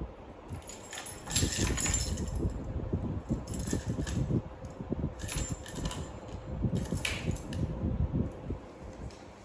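Small metal object, like a key, clinking and rattling as a toddler handles it against a bed frame, in several short spells with dull knocks in between.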